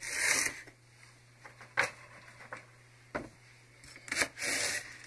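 Kitchen knife slicing celery stalks lengthwise on a cutting board: a crisp scraping rasp as the blade runs through the stalks at the start and again near the end, with three sharp knocks of the blade on the board in between.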